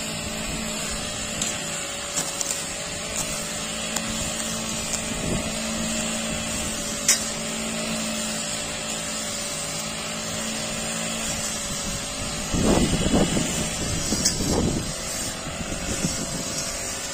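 Backpack petrol brush cutter running at a steady high speed as it cuts grass. A few sharp ticks are heard, and about three-quarters of the way through the sound turns louder and rougher for a couple of seconds.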